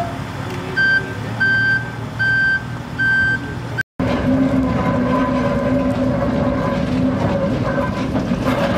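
A forklift's reversing alarm beeps four times, evenly spaced. After a cut, a diesel shunting locomotive's engine runs steadily as the locomotive moves.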